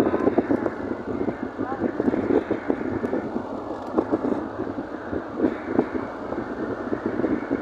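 A car driving along, with indistinct voices talking over the running noise.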